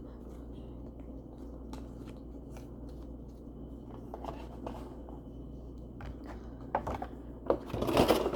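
Trading cards and their holder being handled and put away: light rustling and clicks, becoming louder and sharper in the last two seconds.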